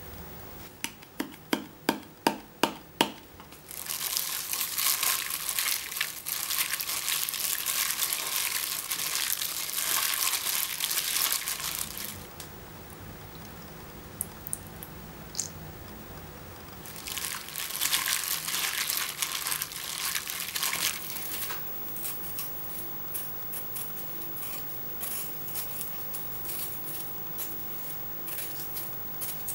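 A quick run of sharp clicks, then two long stretches of wet squishing and crackling as sliced raw beef is mixed with soy sauce, sugar, garlic and sesame oil in a glass bowl. Near the end come small crisp ticks of a kitchen knife paring the skin off an Asian pear.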